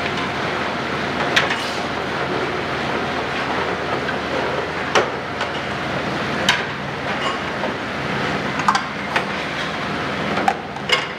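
Steady machinery noise of a dish-room conveyor, with several sharp clinks of china plates and bowls being picked up and knocked together as they are cleared from the belt.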